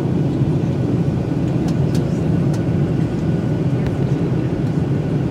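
Steady cabin noise of a Boeing 737-900ER with CFM56-7B engines: an even, low roar of engines and airflow, with a few faint clicks.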